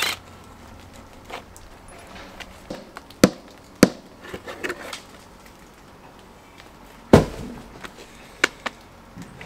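A few sharp wooden knocks and clunks, the loudest about seven seconds in, with lighter clicks between them: timber formwork boards being taken off a concrete pad that has just set.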